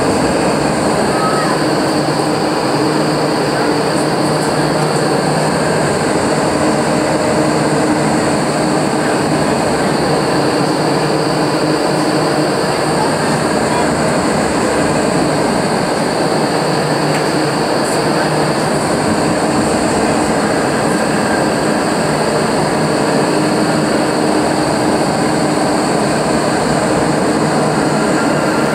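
Indoor skydiving wind tunnel running: a loud, steady roar of rushing air and fans, with a steady low hum of several held tones beneath it.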